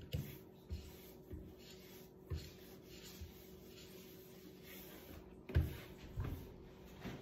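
Cloth rubbing over a wooden tabletop, with several dull knocks as the hand and arm press and bump on the table. The loudest knock comes about five and a half seconds in.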